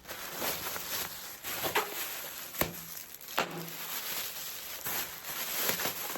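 Handling noise from a small handbag being turned over and examined: rustling, with a few sharp clicks.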